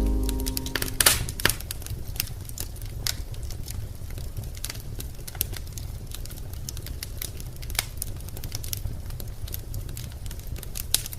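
Wood fire crackling in a fireplace: irregular small snaps and pops over a low steady rumble, with a louder pop about a second in. The last notes of music die away at the start.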